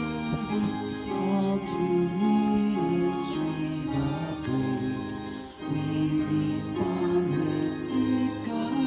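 Voices singing a hymn together to organ accompaniment, in a slow, steady line of held notes.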